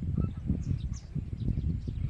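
Faint, short bird chirps scattered over an uneven low rumble on the microphone.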